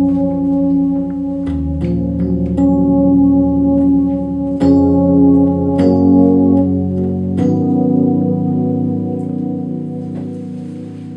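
Electronic keyboard playing slow, held chords with a sustained, organ-like tone. The chord changes every second or two, and the sound fades away over the last few seconds.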